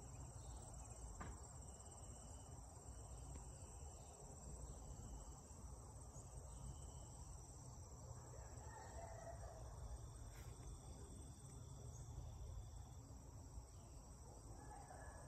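Faint, steady high-pitched chorus of insects such as crickets, with no other clear sound over it.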